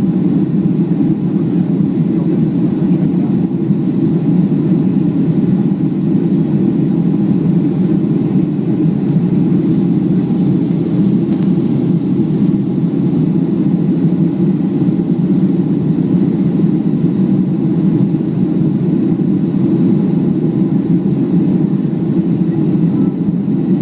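Steady jet engine and airflow noise heard inside the passenger cabin of a Southwest Airlines Boeing 737 airliner, a constant low rumble with no change in level.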